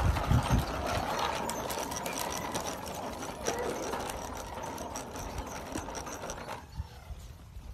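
Hard plastic tricycle wheels rolling fast over concrete, a continuous rapid rattle and clatter that drops away sharply near the end as the trike moves off.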